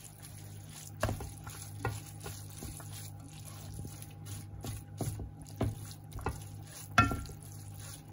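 Wooden spatula stirring and scraping shredded cabbage frying in a black pot, with a light sizzle. The spatula knocks against the pot about once a second, sharpest near the end.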